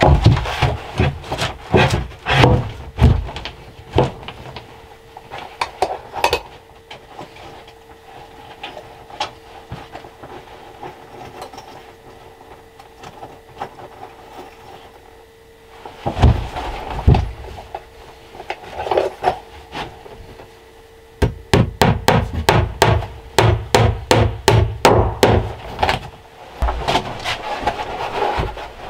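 Hammer nailing pine boards to the cellar wall: scattered knocks and blows at first, then after a quieter stretch a fast, even run of hammer blows, about three or four a second, near the end.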